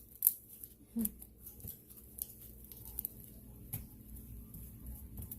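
Homemade glue slime being squeezed and stretched by hand, giving scattered faint sticky clicks and pops.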